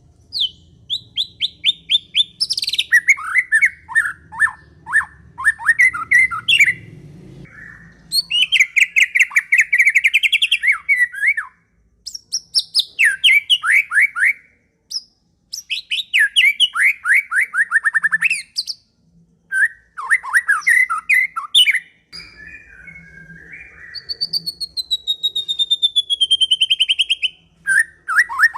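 Murai songbird (Copsychus) singing loud phrases of rapid repeated notes and trills, separated by short pauses, with one long falling whistle near the end.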